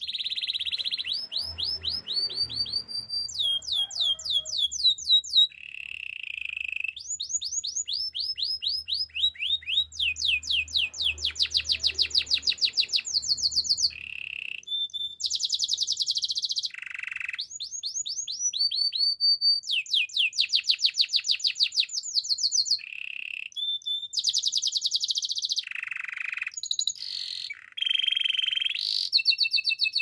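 White domestic canary singing a long unbroken song of rapid trills: each phrase repeats one quick note many times, then switches to a new note every second or two, with a few lower buzzing rolls near the end. The song cuts off abruptly at the end.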